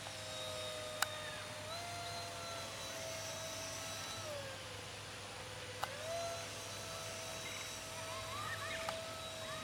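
Electric motor and 6x4 APC propeller of a foam RC jet whining in flight. The high steady pitch rises about two seconds in, drops around four to five seconds, and rises again about six seconds in. Two sharp clicks sound, about a second in and near six seconds.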